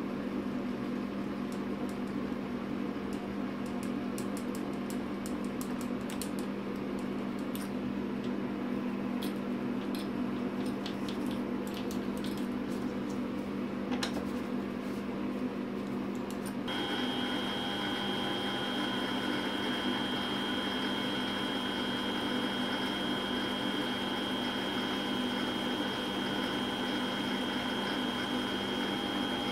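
Sieg C1 mini lathe running steadily, boring out a hole in a solid steel part, with a few light ticks in the first half. About halfway through, a higher steady whine joins the motor hum as the boring tool cuts.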